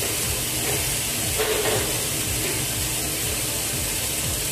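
Chopped onion sizzling in olive oil in a stainless steel stockpot, a steady hiss.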